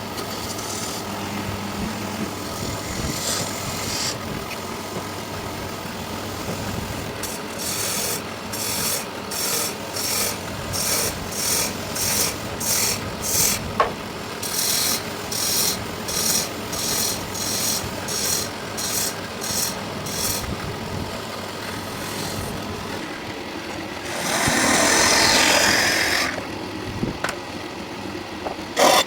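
A rasp or sandpaper worked by hand over wood, in even back-and-forth strokes about two a second through the middle, then one longer, louder scrape near the end.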